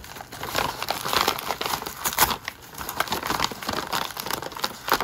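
Brown kraft paper envelope crinkling and rustling as it is torn open and handled, a dense run of sharp crackles.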